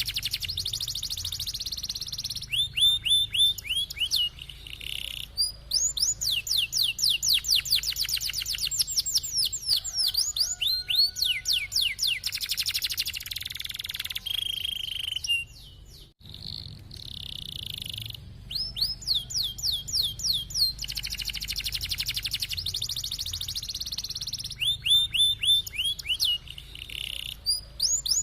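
Domestic canary singing a long song of rapid trills and rolls: fast runs of repeated falling notes, moving between high and lower phrases. The song breaks off for a moment about halfway through.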